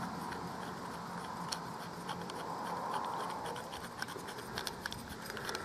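Faint scratching and a few small clicks as an LED pill is unscrewed by hand from the head of a torch, its threads turning under the fingers.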